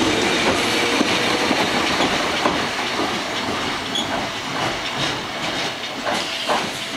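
Keifuku Randen tram pulling away along the track, its running noise and a scatter of wheel clicks fading as it goes.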